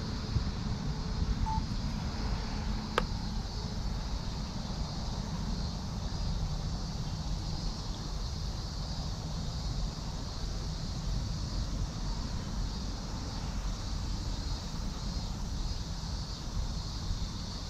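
Steady outdoor background noise: a low rumble with a fainter high hiss over it, broken by one sharp click about three seconds in.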